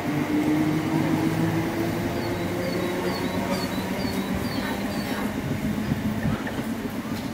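Electric multiple unit pulling out of a station. Its traction motors give a steady whine that rises slightly in pitch as it accelerates, over the rumble of wheels on rail, and it fades slowly as the train draws away.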